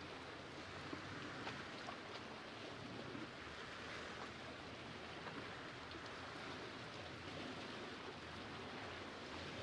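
Small lake waves lapping against shoreline boulders: a steady soft wash that swells gently every few seconds, with faint small splashes and ticks.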